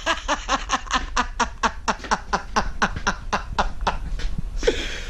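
A man laughing hard: a long run of quick 'ha' pulses, about five a second, trailing off near the end.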